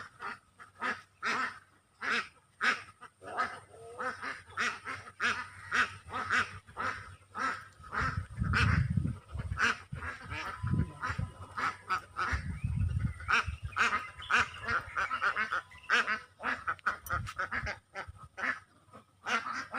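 Ducks quacking over and over in short calls, with two low rumbles about eight and twelve seconds in.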